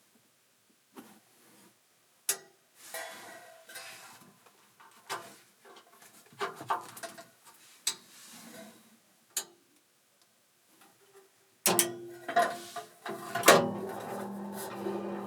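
Hard accessory parts being handled and set down: scattered clicks, knocks and rustling. Near the end a few loud knocks, and steady background music comes in and keeps going.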